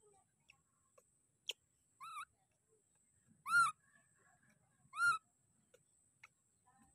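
Baby macaque giving three short, whistle-like coos, each rising then falling in pitch, the middle one the loudest. A single sharp click comes just before the first coo.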